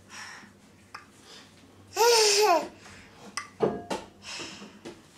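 A baby squealing with laughter: one high, rising-and-falling squeal about two seconds in, then a short babbling sound near four seconds.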